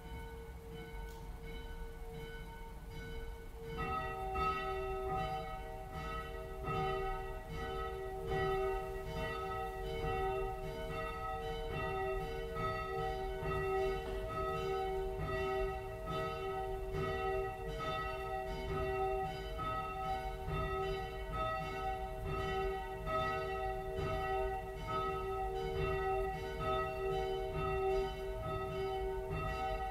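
Church bells ringing with steady repeated strokes: one bell at first, then a second, lower bell joins about four seconds in and the two ring on together.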